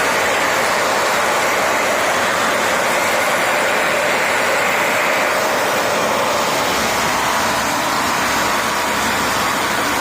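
Dyson Ball Multi Floor 2 upright vacuum cleaner running steadily, its handle reclined so the suction is drawn through the floor head. The pitch of the airflow drops a little about halfway through.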